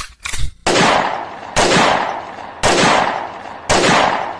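Four loud sudden bangs, about a second apart, each fading off before the next, like gunshots or blasts in a dramatic sound effect.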